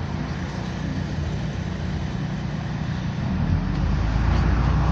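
Cabin noise of a MAZ-105 articulated city bus under way: a steady engine drone with road noise. About three and a half seconds in, the low engine rumble swells and grows louder.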